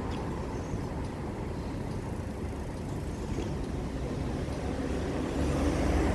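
Toshiba Smart Eco air conditioner outdoor unit running with a steady low hum, and a louder low rumble swelling about five seconds in.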